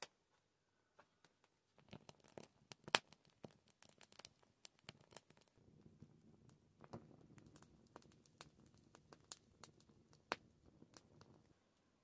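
Wood fire crackling, with irregular sharp pops and snaps. A low steady rush joins the crackle about halfway through, and it stops suddenly near the end.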